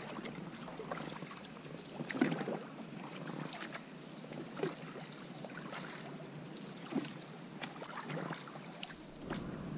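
Water splashing and lapping close around an inflatable boat on a river, with a small splash every two to three seconds.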